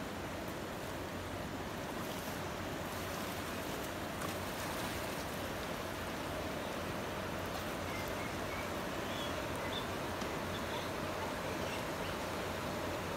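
Steady rush of a fast-flowing, muddy river running over rocks and shallows.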